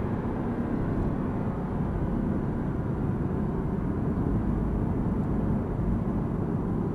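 Mercedes-AMG sports car's engine, tyre and wind noise heard inside the cabin as a steady low rumble while the car slows into a corner off the throttle.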